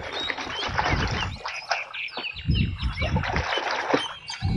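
Birds chirping in quick, repeated calls, with water splashing and sloshing as a toy gun is washed in a tub.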